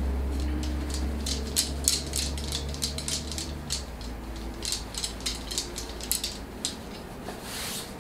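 Light, irregular rustling and clicking as cloth shaman's flags and small objects on a desk are handled, over a faint low hum that stops about halfway through.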